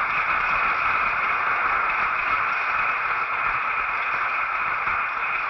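Audience applauding, a dense and even wash of clapping that is louder than the lecturer's voice, heard through an old audiocassette recording.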